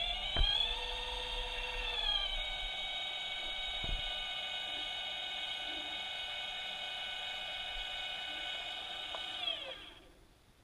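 High-pitched whine of a small motor, rising in pitch as it speeds up at the start, running steadily, then winding down and stopping near the end. A short knock about half a second in, and a fainter one about four seconds in.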